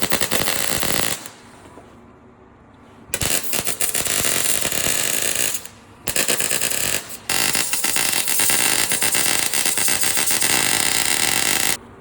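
MIG welder crackling in four bursts that start and stop abruptly, the longest about four and a half seconds near the end: bead runs welding patch plates over rusted-through holes in a chassis.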